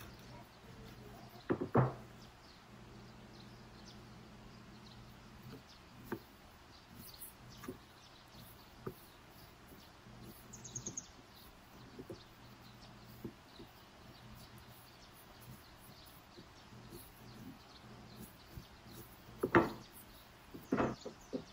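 Wooden rolling pin rolling small pieces of dough on a floured wooden board, with faint scattered ticks. A few sharper wooden knocks come about two seconds in and again near the end.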